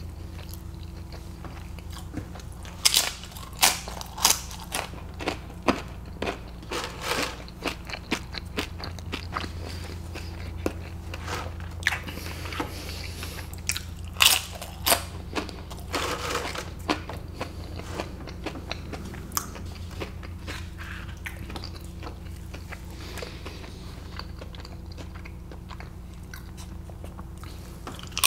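Tortilla chips dipped in guacamole being bitten and chewed close to the microphone: sharp, crisp crunches come thick and fast from about three seconds in until about seventeen seconds, then grow sparser. A steady low hum runs underneath.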